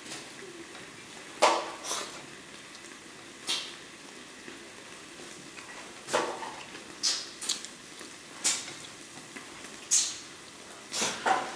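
A person eating sticky rice and cured pork with wooden chopsticks from a plate: short chewing and mouth noises and chopsticks clicking and scraping on the plate, coming in separate short sounds about once a second.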